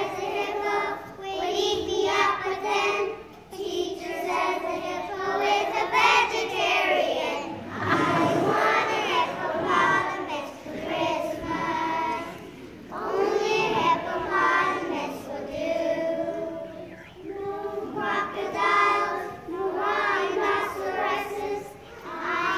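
A group of young children singing a song together in unison, phrase after phrase with short breaths between.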